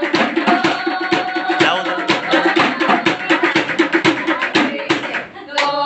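Improvised percussion instruments struck in a fast, steady rhythm, with a group singing over them. The music dies away about five seconds in, and a short call follows near the end.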